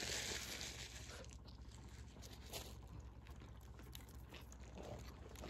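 Faint eating sounds: small crunches and chewing of a sandwich, with a brief rustle of its paper wrapper in the first second or so.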